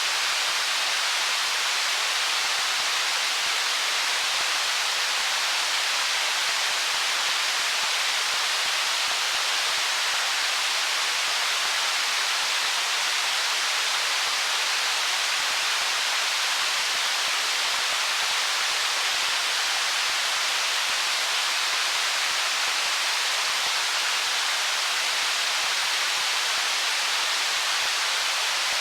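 Stream water flowing over stones: a steady, even rush with no changes or separate splashes.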